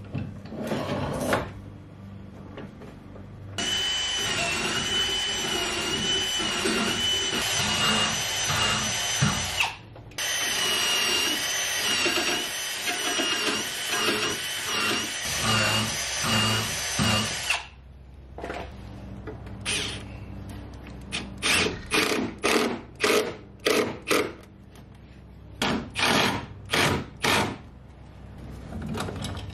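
Milwaukee cordless drill running into a wooden plank: two long runs with a steady whine that wavers slightly in pitch, then a string of short trigger bursts near the end.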